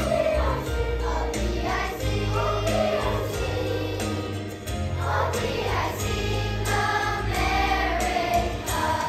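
Children's choir singing in unison over an instrumental accompaniment with steady low bass notes.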